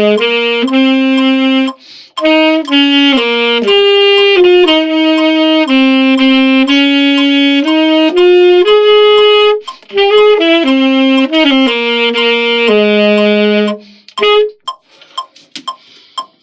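A single wind instrument plays a melody one note at a time, with short breaks between phrases, and stops about fourteen seconds in. A few scattered clicks and knocks follow near the end.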